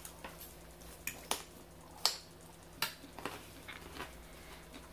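Eating a salad topped with crunchy chow mein noodles close to the microphone: about eight sharp, irregular clicks and crunches from the fork working in the salad and crisp chewing, the loudest about two seconds in.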